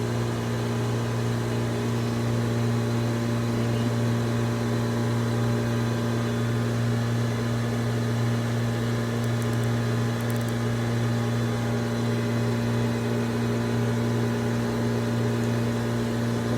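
Shop machinery running with a steady, even hum: a low drone with a few fixed pitches above it that holds unchanged throughout.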